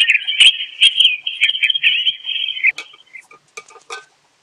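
Alisten Bluetooth speaker alarm clock's alarm going off: a high, warbling electronic chirp that cuts off suddenly a little under three seconds in, followed by a few faint clicks.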